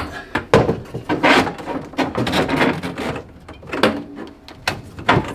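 Dishwasher lines, including the drain hose, being pulled through a hole into the sink cabinet: a series of irregular scrapes, rubs and knocks as they drag against the cabinet.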